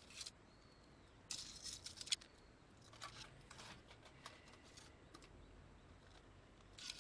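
Metal tongs clacking and scraping against a small folding camp stove: a loud cluster of clicks and rattles a little over a second in, ending in a sharp click, then scattered lighter clicks.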